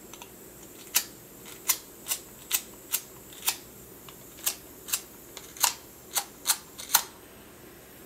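Small handheld butane micro torch's push-button piezo igniter clicked about a dozen times in a row, roughly twice a second, without a flame catching; the torch is almost out of gas.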